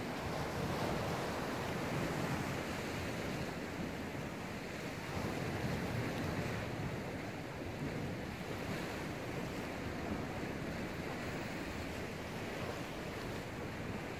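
Rough-sea surf washing in and drawing back against shore rocks, a steady rush that swells a few times.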